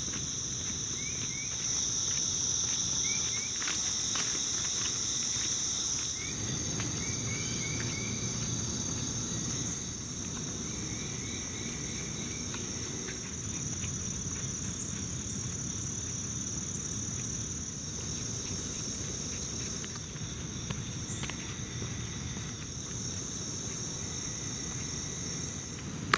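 Steady chorus of summer insects: a continuous high-pitched buzz that holds without a break.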